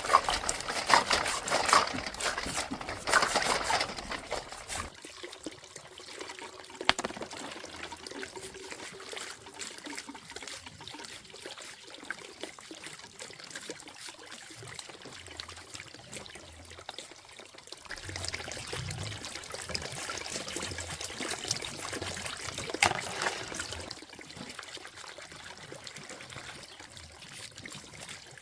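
Water trickling and splashing, with scattered clicks and knocks, busier at the start and again about two-thirds of the way through.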